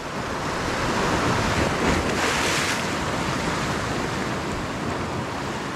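Sea surf breaking and washing over shore rocks, with wind on the microphone. A louder surge of wash comes about two seconds in.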